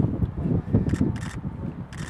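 Wind buffeting an outdoor microphone, a fluctuating low rumble, with a few short sharp clicks about a second in and near the end.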